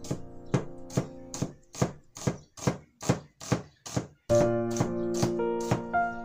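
A cleaver chopping a red onion on a cutting board in even strokes, about two and a half a second, over background piano music that drops away in the middle and comes back louder about four seconds in.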